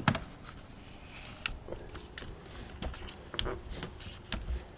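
Scattered clicks and light knocks as a boat's remote throttle and shift control lever is worked by hand, irregular, the loudest right at the start.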